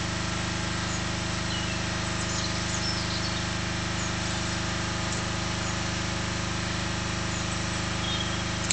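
An engine running at a steady idle, with a few faint bird chirps over it.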